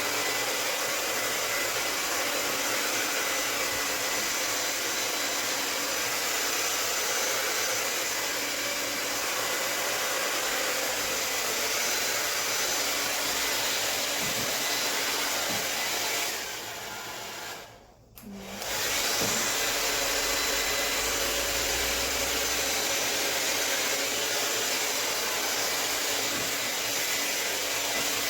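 Hair dryer blowing steadily; it cuts out about 17 seconds in and comes back on roughly two seconds later.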